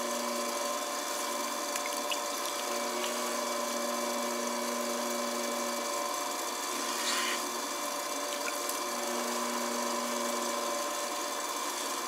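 Electric potter's wheel running with a steady motor whine, a lower hum coming and going, while wet clay is centered on the spinning wheel head under both hands with a soft wet rubbing.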